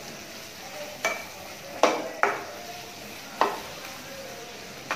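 Onion, capsicum and chillies stir-frying in oil in a nonstick kadai: a steady sizzle, with a spatula scraping and knocking against the pan about five times.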